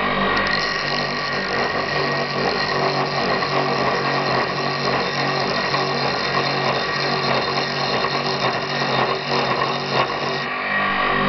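Homemade wood lathe running steadily under its electric motor while an axe blade, used in place of a gouge, scrapes shavings off a spinning elm blank. The axe bounces a little in the cut, which the owner puts down to the soft, partly rotten, worm-eaten wood.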